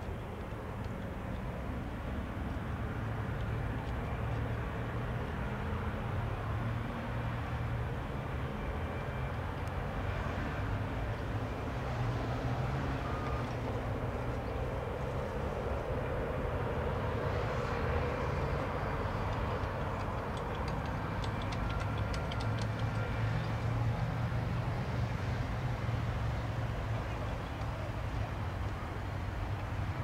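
Embraer 195's twin GE CF34-10E turbofan engines running at low taxi power, a steady rumble and hiss that swells slightly around the middle.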